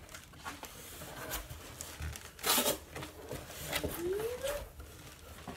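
A cardboard shipping box being opened by hand: flaps rustling and scraping, with a louder tearing rip about two and a half seconds in. A short rising vocal hum comes just after four seconds.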